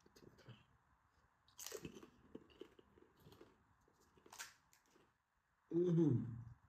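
Crisp pani puri shells crunching as they are cracked open and chewed: one loud crunch about a second and a half in, then a run of smaller crunches. Near the end a short vocal sound from the eater, falling in pitch.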